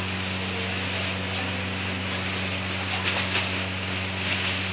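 Electric motor of a gulkand mixer machine running with a steady hum, with rustling and a few scrapes as a sack is emptied into its steel trough, loudest about three seconds in.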